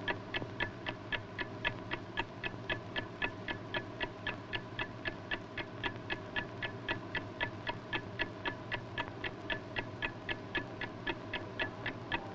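A small mechanical clock ticking steadily and quickly, about four ticks a second, over a faint steady hum.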